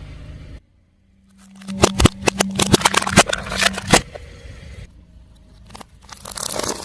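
Objects crackling and crunching as a car tyre rolls over them, over a steady low hum from the car. There is a short drop to silence about a second in. The crunching is densest in the middle, then thins out and picks up again near the end.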